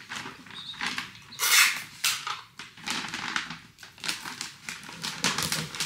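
Handling noise of things worked on at a table: irregular light clicks and knocks, with a few short hissing rasps, the strongest about a second and a half in.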